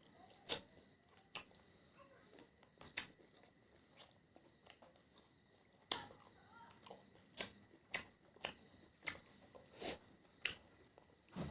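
A person chewing and biting on spicy beef bones: scattered faint crunches and mouth clicks at irregular intervals, with quiet gaps between.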